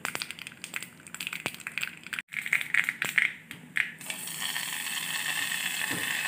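Mustard seeds crackling and popping in hot coconut oil in a small tempering pan. About four seconds in, a steady sizzle starts as the hot tempering is poured into the buttermilk curry.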